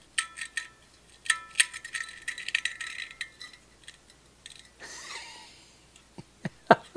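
Rusted mechanical tachometer assembly from a Ford 5000 tractor's instrument cluster being worked by hand: a run of small metallic clicks and clinks with a light ringing over the first few seconds, a brief scrape about five seconds in, and a few sharp clicks near the end.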